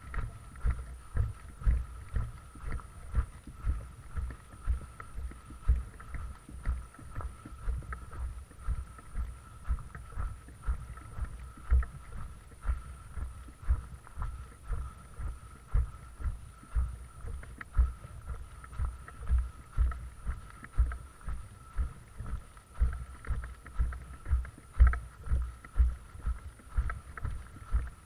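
Footsteps of a person walking: low thuds at about two a second, with a faint steady high whine behind them.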